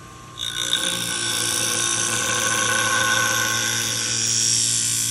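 Scissor blade's bevel being ground on the spinning diamond wheel of a Wolff Twice As Sharp sharpener: a steady, high-pitched grinding hiss with a ringing whine, starting about half a second in. It runs over the low hum of the machine's motor.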